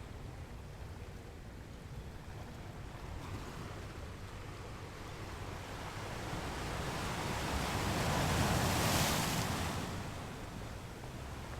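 Ocean waves on a beach: a steady low wash of surf, with one wave building, breaking and washing out about eight to nine seconds in.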